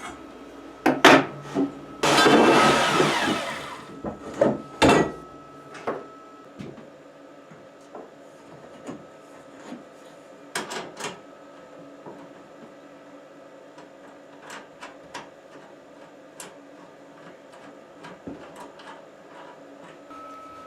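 Hands-on work with conduit and wall boxes: a few sharp knocks, then a loud noisy burst about two seconds in lasting roughly a second and a half, followed by scattered light taps and clicks over a faint steady hum.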